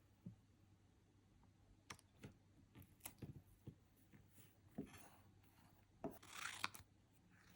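Stickers being handled and pressed down by hand for a sticker collage: scattered faint taps, and a short rubbing rustle about six seconds in.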